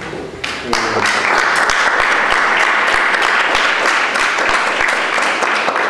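Audience applauding, starting about half a second in and building quickly to a steady clapping that keeps going.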